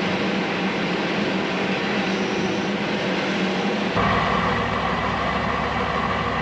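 Heavy diesel machinery running steadily as a forage harvester chops corn into a silage truck. About four seconds in, the sound cuts abruptly to a diesel truck idling, a steady low rumble with a high whine over it.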